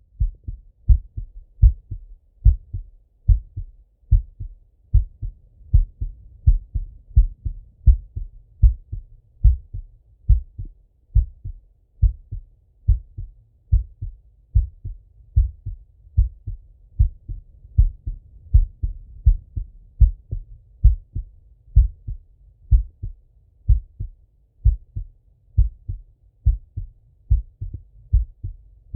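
Man's heartbeat heard through a Littmann stethoscope: steady paired lub-dub thumps at a resting rate, a little over one beat a second.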